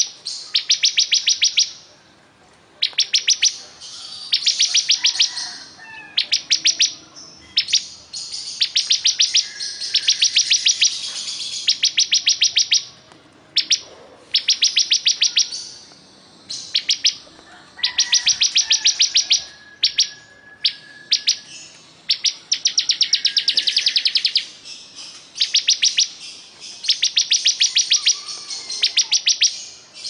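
A caged bar-winged prinia (ciblek kristal) singing continuously: a fast, high trill of rapid repeated notes, each trill about a second long, repeated again and again with short pauses between.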